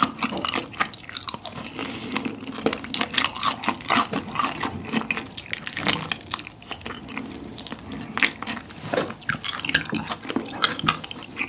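Close-miked wet, sticky chewing and lip-smacking of saucy tteokbokki: a dense run of small moist clicks and smacks.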